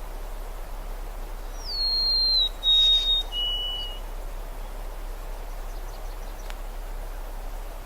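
A songbird whistling three clear, pure notes, each lower than the last, over a steady soft background hiss of outdoor ambience.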